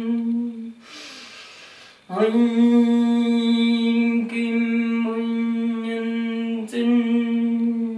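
A woman's voice holding a long, steady meditation chant on one note, with a breath in about a second in before the note is taken up again and a short break near seven seconds.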